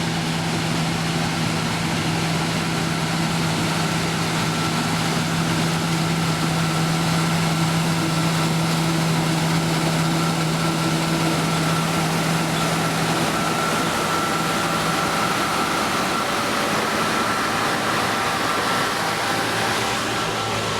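Combine harvester running steadily while harvesting: a continuous engine and machinery drone with a steady low hum. The low hum fades out about two-thirds of the way through, and a higher whine grows louder towards the end.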